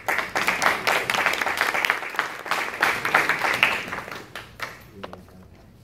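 Audience applauding: a burst of many hands clapping that thins out and fades away about a second before the end.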